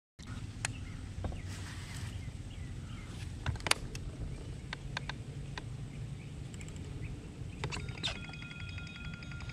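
Low steady hum with scattered clicks and knocks of fishing tackle on a small boat; about eight seconds in, a mobile phone starts ringing with a steady, multi-tone electronic ring.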